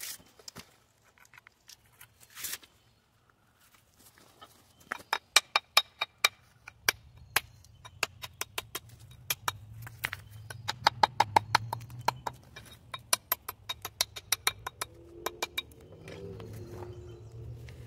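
Sharp taps on a wall cap being set on a rock wall, in quick irregular runs that start about five seconds in and stop near the end, with a low hum underneath.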